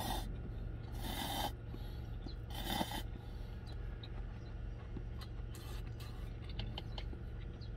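A man slurping udon noodles from a cup, two loud slurps about a second and three seconds in, followed by quieter chewing with small clicks. A steady low hum runs underneath.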